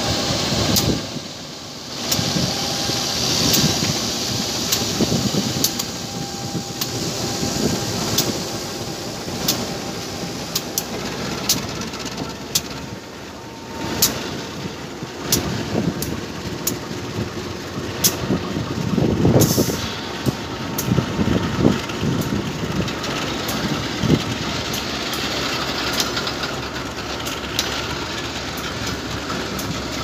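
Slow-moving work train passing at walking pace: a CC201 diesel-electric locomotive running, then flat wagons loaded with concrete sleepers rolling by on newly relaid track. A steady rumble is broken by many irregular sharp clicks and knocks from the wheels.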